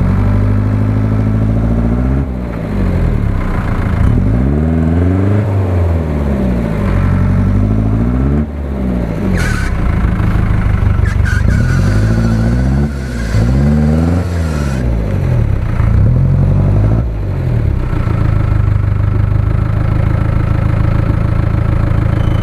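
UAZ-469 off-roader's engine revving up and easing off again and again, about six surges, as the truck labours through deep mud. Near the end it holds a steady high rev.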